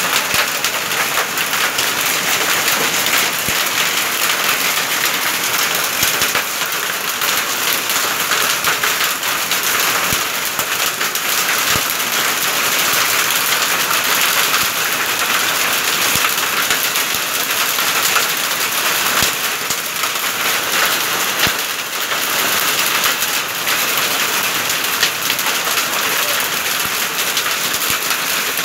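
Heavy rain mixed with small hail pelting wet pavement and foliage: a loud, steady hiss of downpour, dotted with many small sharp impacts.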